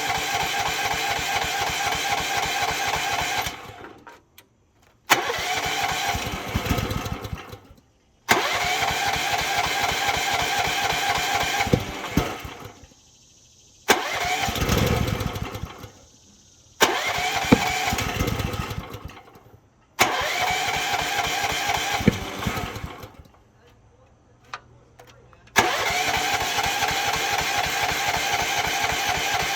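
Rippa Mule Trac mini excavator engine being cranked on its electric starter about seven times in a row, each attempt a few seconds long with short pauses between. It briefly catches with a rumble on some tries but will not keep running, a fuel-delivery problem the owner suspects.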